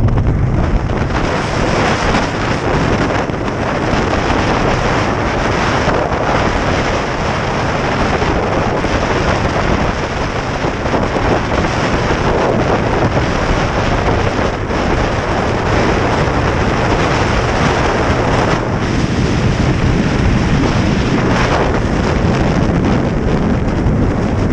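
Steady wind rush buffeting the microphone of a camera mounted on a chopper motorcycle at road speed, with the bike's engine and tyre noise mixed in.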